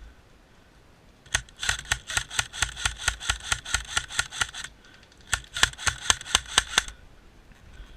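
Airsoft rifle firing close by: two strings of rapid shots at about seven a second, the first about three seconds long starting a second in, and a shorter one after a brief pause.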